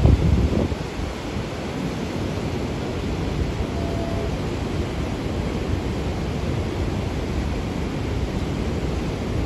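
Steady rushing roar of the Niagara River's fast white water at the falls, with a deep low boom in the first half second.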